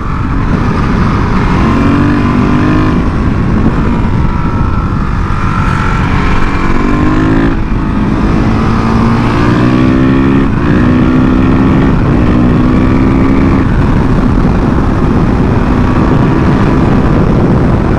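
Supermoto motorcycle engine accelerating through the gears, its pitch rising several times with short breaks at the shifts, over a steady rush of wind noise. In the last few seconds it settles into a steady cruise.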